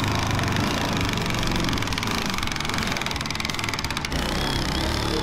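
Cordless drill driving a shear attachment, its motor whirring steadily with a rapid chatter as the shear cuts a strip out of a pickup's bedside sheet metal.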